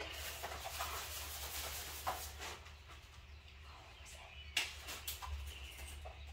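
A folded nylon umbrella being handled and unwrapped: fabric rustling for the first couple of seconds, then a sharp click about four and a half seconds in. A steady low hum runs underneath.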